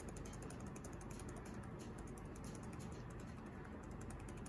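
Enter key on a Lenovo ThinkPad laptop keyboard tapped rapidly and repeatedly, quiet, even key clicks, pressed during boot to bring up the startup interrupt menu.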